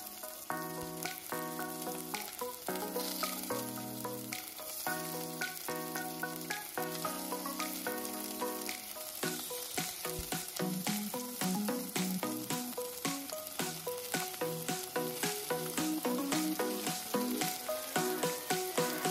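Background music, melodic notes with a steady beat from about halfway through, played over food sizzling in a pot.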